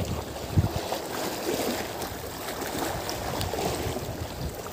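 Wind buffeting the microphone over open water, an uneven low rumble with a steady hiss of water behind it.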